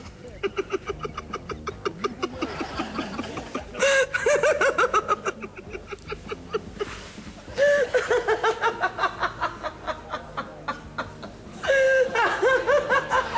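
A person laughing. Quieter rapid snickering gives way to three louder bouts of fast 'ha-ha-ha' pulses, each opening on a held note and coming about four seconds apart.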